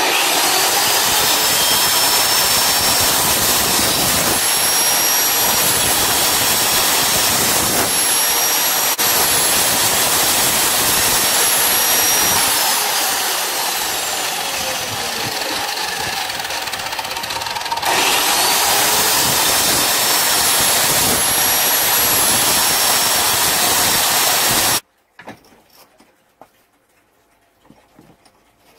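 Sliding compound mitre saw running and cutting a wooden block: the motor starts suddenly with a rising high whine, winds down about halfway through, then speeds up again. The sound cuts off abruptly a few seconds before the end, leaving only faint knocks.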